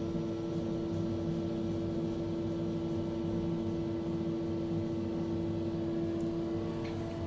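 Cruise-ship passenger elevator car travelling down, a steady hum with one constant tone.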